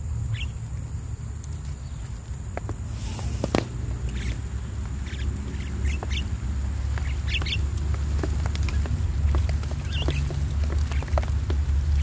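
Scattered short bird chirps and calls over a steady low rumble, with a few light clicks.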